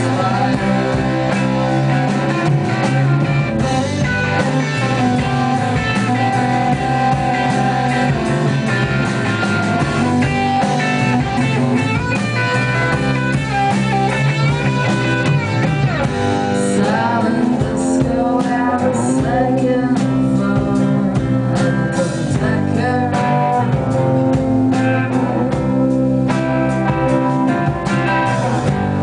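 A rock band playing live, guitar to the fore with a blues feel, loud and continuous.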